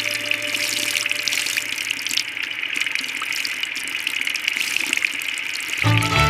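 Water running or gushing steadily, with small splashes and ticks through it. Music comes in near the end.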